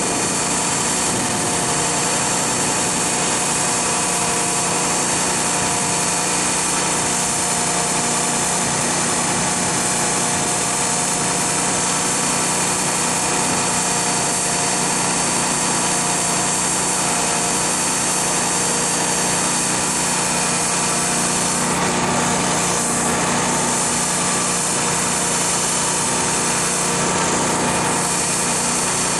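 E46 BMW M3's 3.2-litre inline-six running at a steady speed on a chassis dyno, with a steady whine and no revving.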